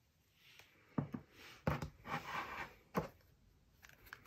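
Small plastic slime tubs being handled: a screw-on plastic lid twisted with a scraping rasp, and three light knocks as the tubs touch the wooden table.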